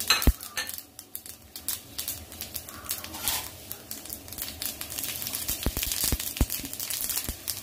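Ajwain (carom seeds) being added to the amla and stirred in: scattered small clicks and crackles, with a few dull knocks a little past the middle.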